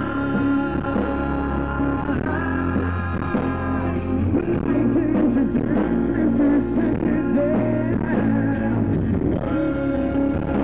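Live rock song played loudly: a male lead vocal sung over a strummed acoustic guitar and backing band.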